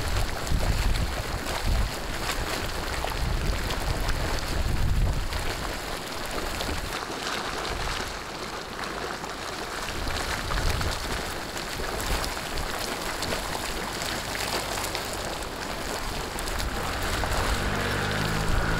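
Hot sulphur spring water bubbling in a shallow pool, a steady rushing hiss, with gusts of wind rumbling on the microphone every few seconds.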